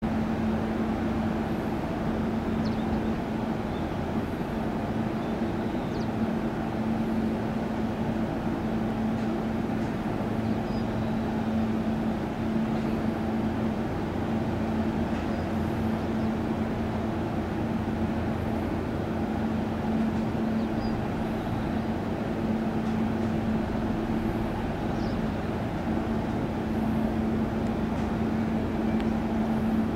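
Commuter electric train standing stopped with its onboard equipment running: a steady hum holding one constant low tone over a bed of noise. Faint high chirps come and go.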